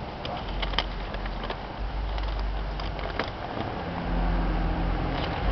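Steady low rumble of an idling vehicle engine, with a few sharp clicks.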